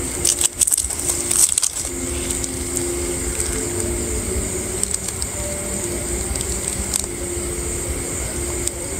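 Outdoor night ambience: a steady high-pitched insect chirring over a low rumble, with a short run of crackling rustles in the first two seconds.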